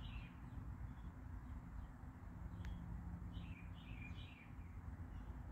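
Small birds chirping in short quick runs of notes, once near the start and again a little past the middle, over a steady low outdoor rumble. A single sharp tick sounds about two and a half seconds in.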